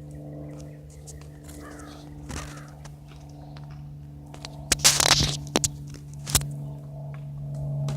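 Single-engine Cessna's piston engine droning steadily overhead, growing a little louder near the end. A few short, harsh scraping noises break in about five to six and a half seconds in.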